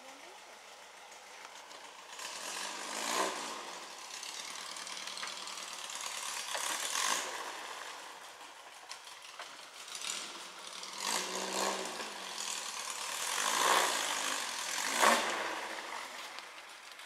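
Rail buggy's Volkswagen engine revving in repeated surges, the pitch rising and falling with each burst of throttle as it climbs; the loudest surge comes near the end.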